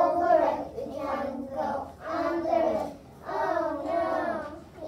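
A group of young children chanting a story rhyme together in unison, in short rhythmic phrases of about a second with brief pauses between them.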